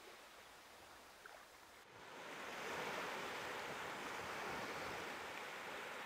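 Small sea waves washing onto a beach: faint for the first two seconds, then a louder, steady wash of surf.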